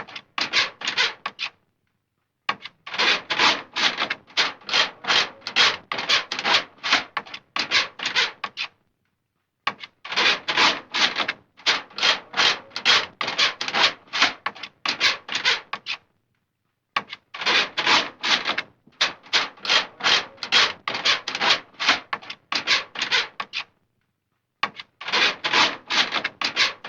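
Scratching on a door, in runs of quick scrapes about two a second, broken by pauses of about a second between runs.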